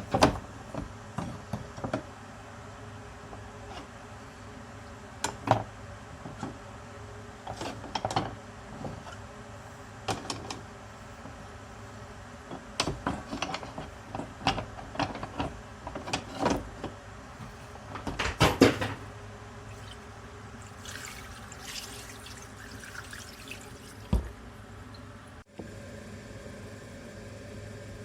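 Scattered knocks, clatter and scraping of a kitchen knife being handled at a sink, with some water sounds; the loudest clatter comes about two-thirds of the way through.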